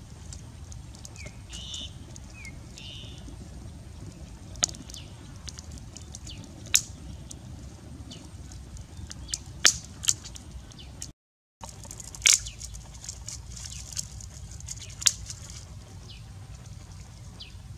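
Small open fire of dry twigs crackling, with sharp single pops every few seconds over a low steady rumble. A few short chirps sound near the start.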